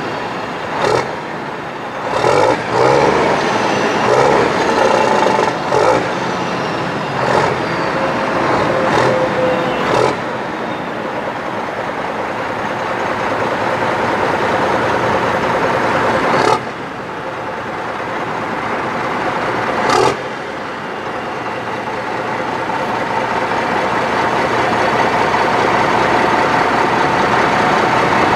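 Foden Alpha 420 truck's diesel engine running through straight exhaust pipes as the tractor unit pulls slowly away. A series of sudden short loud sounds comes in the first ten seconds, two more follow later, and the engine grows louder near the end.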